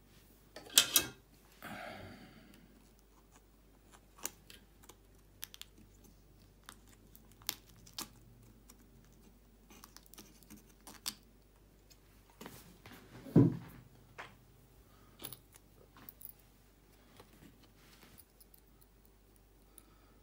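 Scattered small clicks and knocks from handling an opened metal-cased power supply and a small screwdriver on a table. There is a cluster of sharp clicks about a second in and a louder thump about 13 seconds in.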